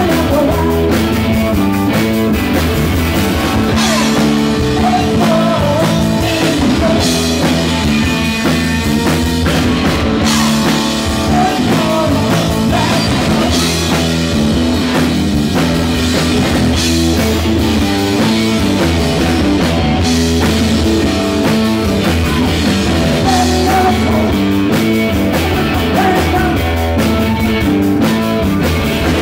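Live rock band playing loudly: electric guitar, bass guitar and drum kit driving a steady rock beat.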